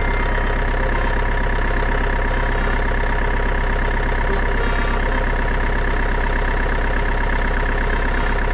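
Truck engine idling steadily at one even pitch, with no rise or fall in speed.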